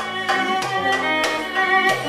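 Live belly-dance music from a small ensemble: a violin melody over regular percussion beats.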